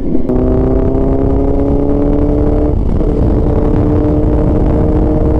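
Motorcycle engine running under way, its note climbing slowly for the first few seconds, breaking briefly about three seconds in, then holding steady, over a steady low rumble.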